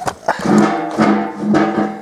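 A sharp knock as a magnet is knocked over, followed by a short burst of music with drums and held pitched notes.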